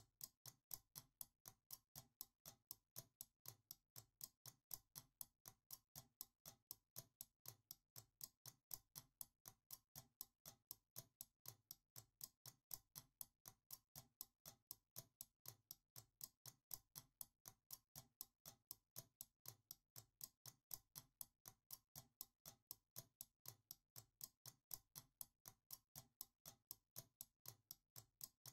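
Small mechanical alarm clock ticking faintly with a quick, even tick.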